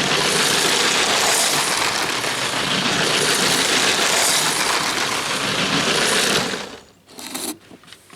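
A motorised Lego toy train running on its plastic track, a steady whirring clatter with slow swells, which stops about six and a half seconds in.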